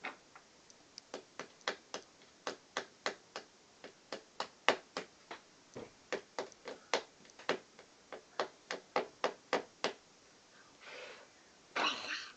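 A child's toy hammer tapping small nails through coloured shapes into a hammering-game board: uneven sharp taps, about three a second, for most of the time. They stop near the end, where there is a short scraping rustle.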